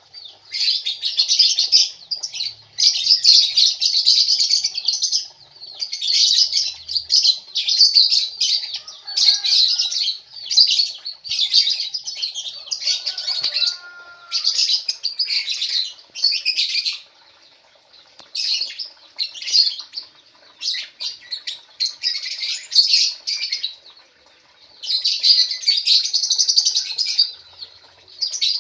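Lovebirds chattering in repeated bursts of rapid, high chirps, each a second or two long, with short pauses between.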